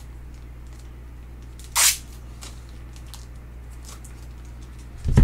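Steady low electrical hum in a small room, with a few faint ticks of handling, a short hiss about two seconds in, and a heavy low thump just before the end.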